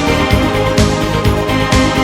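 Background music with a steady beat, a sharp high stroke about once a second over quicker low thumps and held notes.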